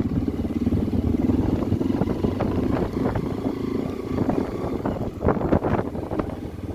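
Motorcycle engine running steadily while riding on the road, with wind noise on the microphone.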